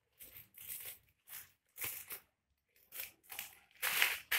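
Scissors snipping through a plastic bubble-wrap package, a string of short crackling snips and rustles, with louder crinkling of the plastic near the end.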